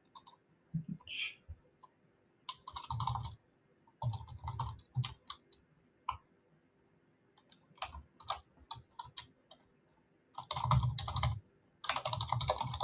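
Computer keyboard typing in several short bursts of keystrokes separated by pauses.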